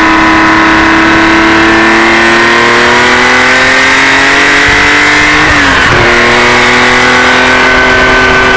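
1972 Porsche 911's air-cooled flat-six engine pulling under acceleration, heard loud from inside the car, its pitch climbing steadily. About five and a half seconds in the pitch drops sharply at an upshift, then it starts climbing again.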